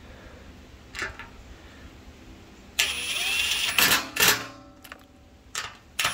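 Metabo HPT Triple Hammer cordless impact driver snugging up a hex bolt on a steel workbench leg bracket: about three seconds in it spins up and runs for about a second, then gives two short loud bursts of hammering.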